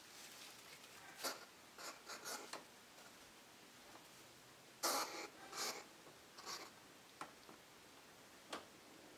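An upset African pygmy hedgehog huffing and popping in short, sharp puffs while being handled, about seven of them, the loudest about five seconds in, with rustling of shredded paper bedding.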